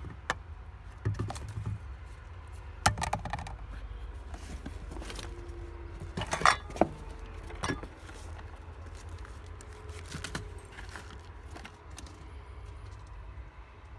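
Hands rummaging through a car's interior, giving scattered clicks, knocks and light clinking rattles of small hard objects, with sharper knocks about three, six and a half and seven and a half seconds in, over a low steady rumble.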